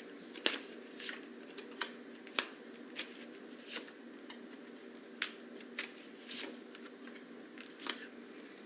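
Tarot cards being shuffled and handled: a string of light, irregular clicks and flicks, roughly one a second, over a faint steady hum.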